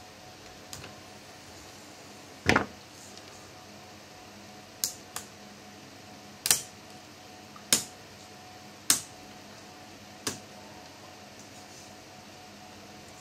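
Scattered sharp clicks and knocks of small hard parts and plastic laptop casing being handled during disassembly, about seven in all, the loudest a double knock a couple of seconds in.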